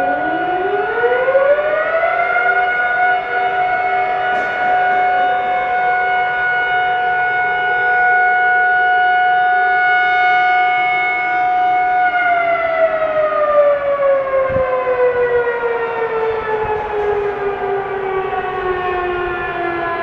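Civil defense air-raid sirens sounding the national mourning signal for the earthquake victims. The loudest siren winds up to a steady tone over the first couple of seconds, holds it, and from about twelve seconds in slowly winds down in pitch, with other sirens overlapping it.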